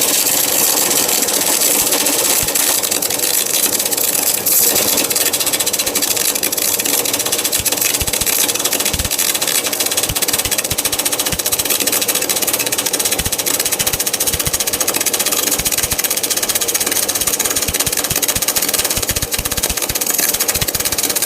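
MAG welding arc running steadily: a continuous, dense crackling hiss.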